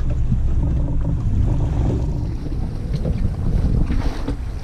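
Boat's outboard motor running steadily, with wind buffeting the microphone.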